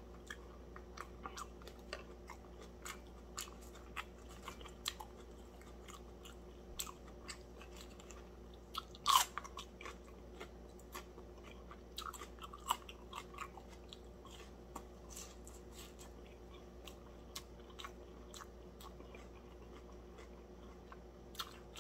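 Close-up chewing and crunching of crispy breaded fried fish, a steady run of small crisp crunches and mouth clicks, with one louder crunch about nine seconds in.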